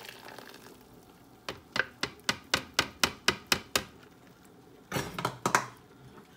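Blender jar knocked against a plastic strainer, about ten quick light knocks at about four a second, shaking out the last of a blended chile sauce. A brief louder clatter follows about five seconds in.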